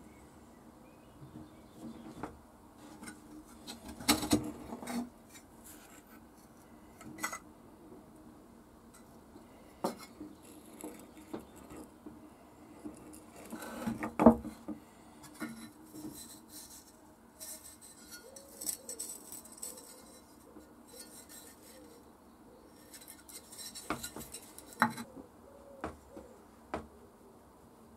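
Rusty antique hand tools, among them a geared hand drill, being handled and set down on a wooden bench: scattered metal clinks and knocks, loudest about four and fourteen seconds in.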